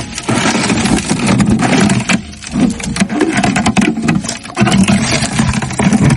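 A small motor running unevenly, with dense rapid scraping and clicking; it dips briefly a little over two seconds in.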